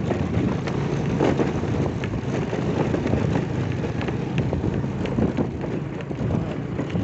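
Motorcycle engine running steadily on the move, with wind buffeting the microphone and a scattered crackle of tyres over a loose gravel road surface.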